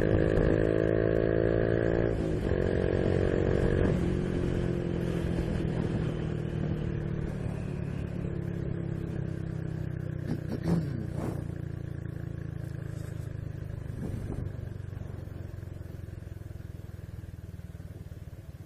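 Honda Biz 125 single-cylinder motorcycle engine running under way, its note breaking about two and four seconds in and then sagging in pitch as it slowly grows quieter, with a few light knocks past the halfway point.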